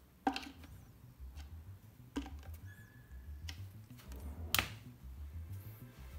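Sharp clicks and knocks of a screwdriver turning cam-lock fittings in a particleboard bookcase panel, the loudest about four and a half seconds in. A faint low pulsing runs underneath from about a second in.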